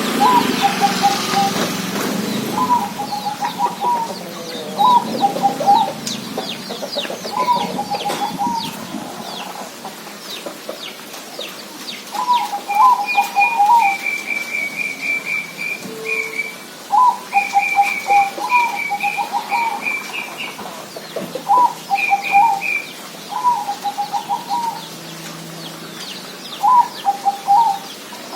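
Zebra dove (perkutut) cooing: a run of short, stuttering trilled phrases about a second long, repeated every couple of seconds. A higher, rapid chattering from another bird joins in midway.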